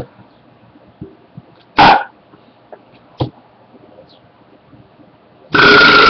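A person burping: a short loud burp about two seconds in and a smaller one a second later, then a long loud belch starting near the end.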